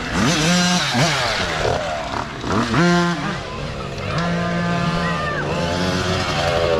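Mini dirt bike engines revving up and down. The pitch climbs sharply about half a second in and again near three seconds, then holds steadier from about four seconds.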